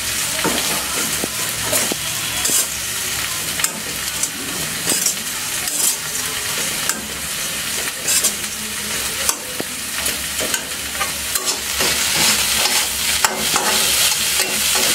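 Metal spatula stirring and scraping flattened rice with onions in an iron kadai, over a steady sizzle of frying on a low flame. Short scrapes of the spatula against the pan come again and again.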